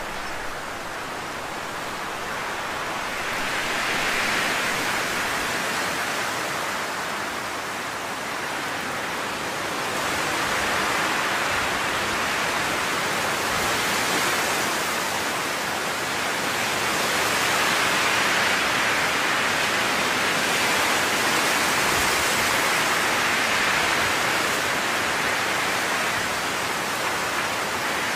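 Steady rushing noise with no tone in it, swelling and easing slowly over several seconds at a time.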